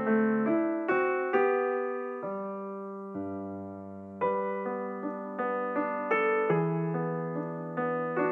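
Background piano music: single notes and chords struck and left to fade, with a longer held chord a few seconds in.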